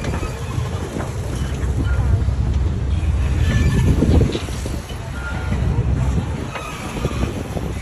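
Low steady rumble of a river boat's engine with scattered voices of people around, the rumble dropping away about four seconds in.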